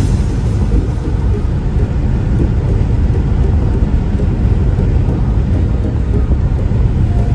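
Steady low rumble of a vehicle on the move, road and wind noise with no distinct events.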